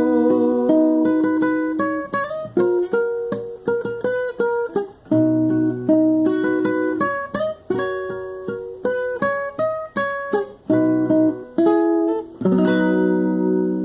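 Acoustic guitar played alone, plucking a melody note by note, then a chord strummed about twelve seconds in and left ringing.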